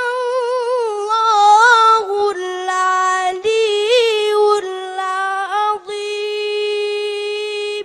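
A young boy's voice chanting in melodic Quranic recitation style, drawn-out notes that waver and slide between phrases, with short breaks between them; the last note is held steady for about two seconds and stops just before the end.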